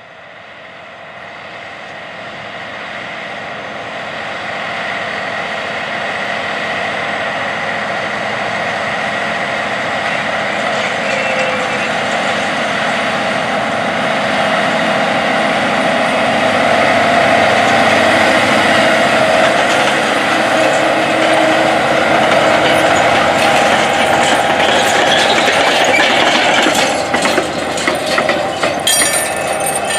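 John Deere 9520RX track tractor pulling a 36-row John Deere DB90 corn planter, its engine and machinery running steadily and growing louder over the first twenty seconds as it comes closer. Near the end the planter passes close, with a brief clatter of rattles from its row units.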